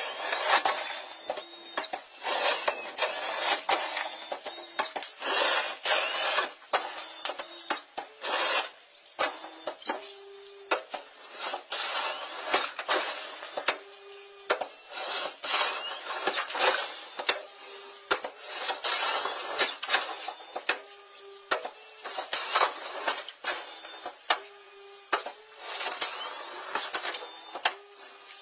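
Aluminium boat hull and lowered bow ramp grinding and scraping over gravel and stones as the boat works off the beach. The scraping is irregular, with many harsh rasping strokes and short squeals every few seconds.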